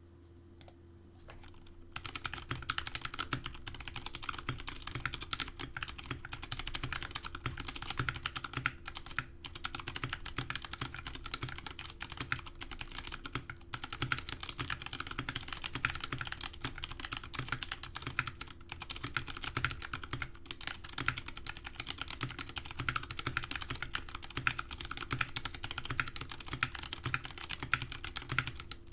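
Fast, continuous typing on a Drop Alt High Profile mechanical keyboard with Zealios v2 62g tactile switches lubed with Tribosys 3204, starting about two seconds in.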